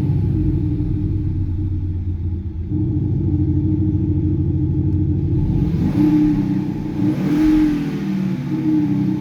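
Car engine note played through a Kufatec Sound Booster set to its Maserati V8 sound, giving a steady low V8-style rumble. The sound swells briefly about two-thirds of the way through, as if the engine is blipped.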